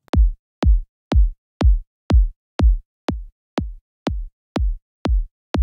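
Electronic kick drum looping at about two hits a second, each a short click falling into a deep thump, run through a compressor. About three seconds in the hits drop in level and sound squashed, then come back up near the end as the low end is filtered out of the compressor's sidechain, so the lows stop being compressed.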